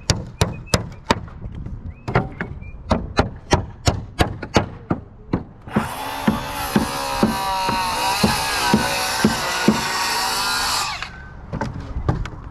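Claw hammer driving nails into new pine boards on an old wooden roof deck, a steady run of about three blows a second. From about six seconds in to about eleven, a circular saw cutting wood runs loudly under the hammering, then stops.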